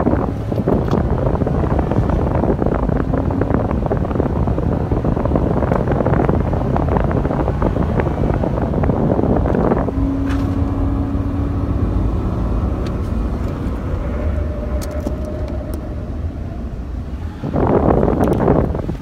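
Pickup truck cabin noise while driving slowly: steady engine and road rumble. For the first ten seconds or so there is dense rustling and knocking from the phone being moved about, and a short louder rush comes near the end.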